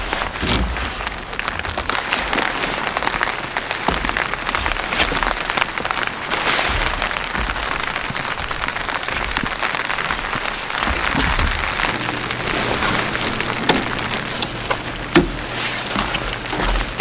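Steady rain pattering, with the crinkle and rustle of a plastic rain poncho moving close by.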